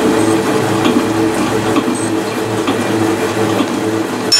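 Milling machine running, its rotating cutter taking a cut across a metal block to form a recess, a steady machine hum under the cutting noise. A sharp knock comes right at the end.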